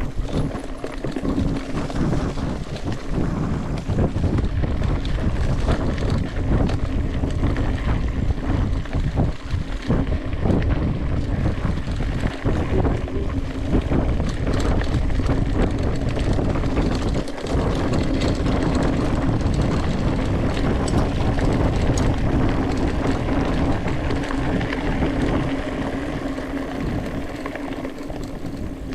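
Mountain bike riding a rough trail: wind rushing over the microphone and the tyres and bike rattling over the ground, with a steady hum under it. It eases off a little near the end.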